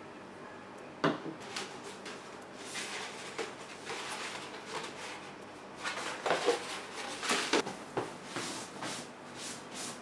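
Objects being handled and set down on a shelf, with a sharp knock about a second in. Bursts of paper rustling and crackling follow as a large paper poster is rolled up.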